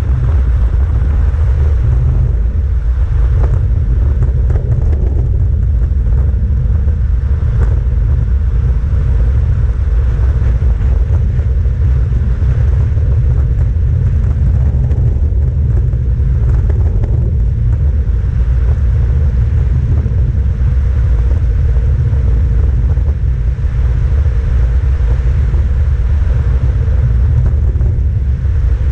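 Loud, steady rumble of wind buffeting the camera's microphone on a road bike descending at about 60 km/h.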